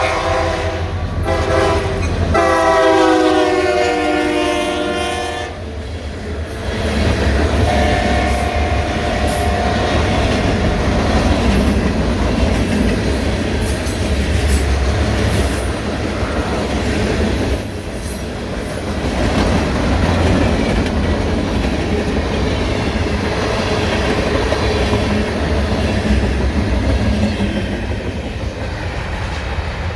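Train horn blowing a multi-note chord for about five seconds, with a short break near the start, then the train passing close by: a heavy low rumble of the locomotive and cars with wheels clacking on the rails.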